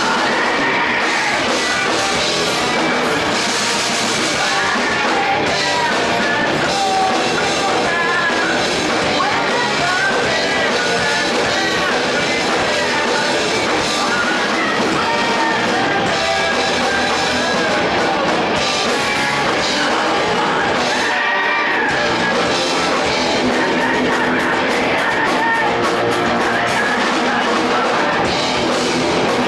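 A rock band playing live and loud: guitar and drums with shouted vocals over them.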